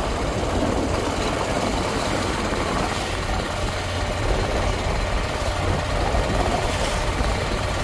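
Motorboat engine running steadily, a continuous low rumble with an even wash of noise over it.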